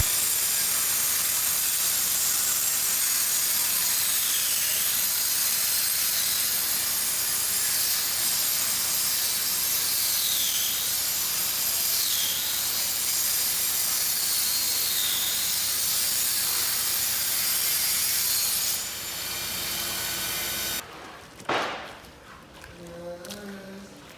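A motor-driven power tool running steadily with a high, hissing whine. Its pitch dips briefly about four times as it takes load. It drops away near the end, and a short knock follows.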